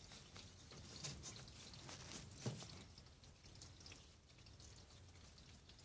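A few faint clicks and knocks of a hand working the butterfly handle of a Bugatti brass ball valve, the sharpest about two and a half seconds in; otherwise near silence.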